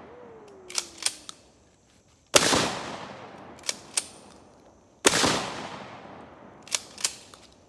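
12-gauge shotgun fired twice, about 2.7 seconds apart, each blast echoing away over a second or more. Each shot is followed by two sharp clacks of the action being worked back and forward to chamber the next shell, and one more such pair comes about a second in, as the echo of a shot just before fades.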